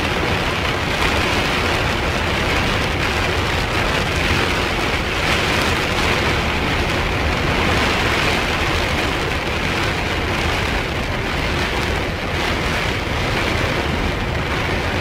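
Heavy thunderstorm rain, driven by strong wind, drumming steadily on the body of a parked motor home, heard from inside.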